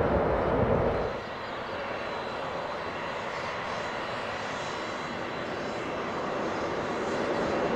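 Airliner engines running: a steady rushing noise with a faint high whine. It drops abruptly about a second in, then slowly grows louder toward the end.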